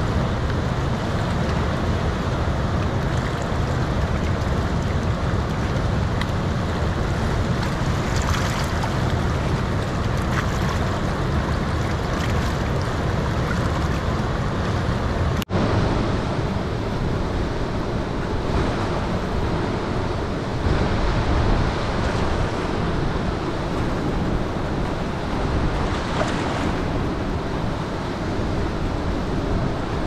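Swollen, muddy mountain river rushing through rapids and around boulders, a loud steady churning of white water. The sound drops out for an instant about halfway through.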